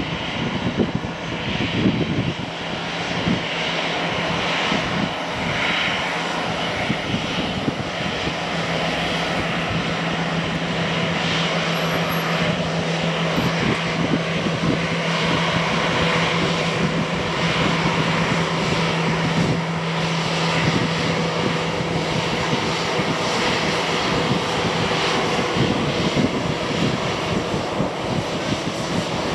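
Airbus A321 jet engines running at a steady, loud level, with a low steady hum through most of it.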